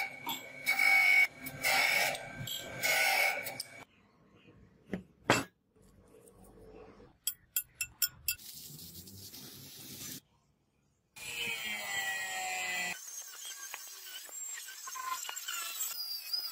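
Surface grinder wheel grinding a damascus steel billet: bursts of grinding noise about once a second over a steady high whine. After that, a few sharp clicks, and near the end an angle grinder cutting the steel blade blank.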